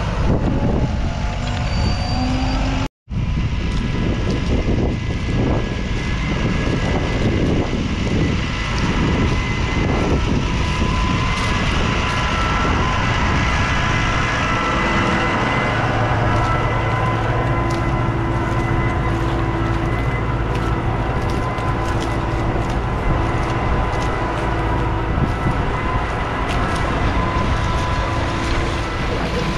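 New Holland T7.225's 6.7-litre six-cylinder diesel engine running steadily under load while pulling a five-furrow reversible plough through the soil. The sound briefly cuts out about three seconds in.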